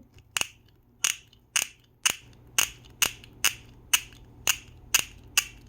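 Plastic fidget clicker on a Fashion Fidgets mermaid doll being clicked over and over: about eleven sharp, even clicks, roughly two a second.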